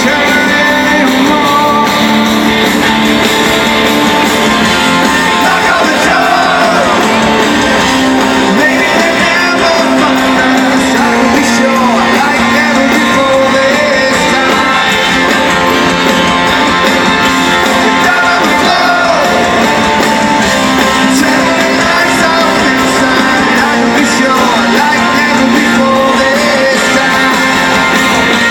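A live rock band playing a song: a sung lead vocal over guitars, loud and even throughout.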